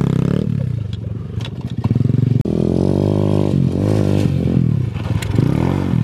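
Small pit bike engine revving up and down in repeated swells as it is ridden hard in tight circles. The revs drop about half a second in and pick up sharply again about two and a half seconds in, with loose gravel scattering under the spinning rear tyre.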